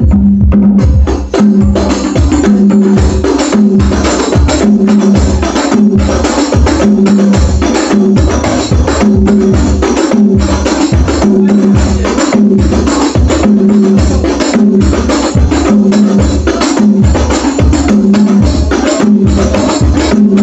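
Loud music with a fast, steady percussion beat and heavy bass hits, played through a sound system during a sound check.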